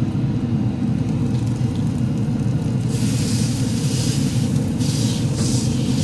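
Hand spray bottle spritzing water onto the ribs in several short hissing squirts from about halfway through, over a steady low rumble.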